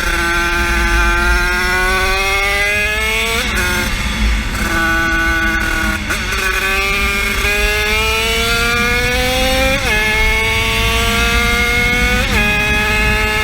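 A 50cc engine run at full throttle, its pitch climbing slowly through each gear and dropping sharply at each of four gear changes.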